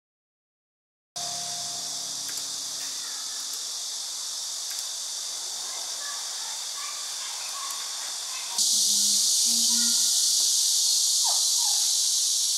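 Steady, high-pitched insect chorus. It starts about a second in and gets noticeably louder about eight and a half seconds in.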